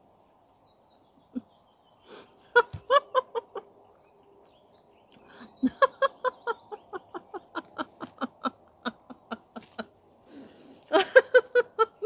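A woman laughing hard in short, rhythmic bursts. There is a burst about two and a half seconds in, a long run of about five laughs a second from about five and a half seconds, and another strong burst near the end.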